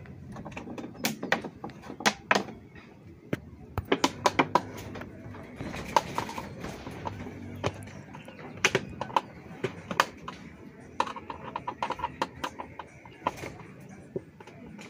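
Plastic water jug and plastic bowl being worked with a screwdriver: irregular sharp clicks, taps and knocks of hard plastic.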